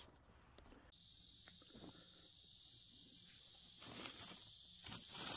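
Faint steady high hiss that starts abruptly about a second in, with a few faint knocks under it.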